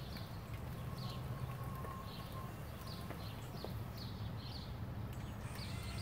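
Homemade remote-control wheelbarrow's drive motor running with a steady low rumble as it creeps across the lawn, while a bird chirps repeatedly in short high calls.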